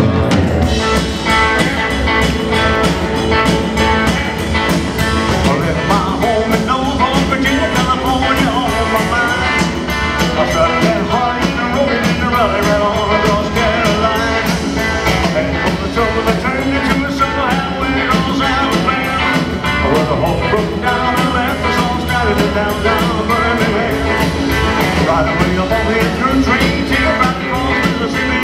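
Live rock-and-roll band music with a fast, steady beat, electric guitar and a singing voice.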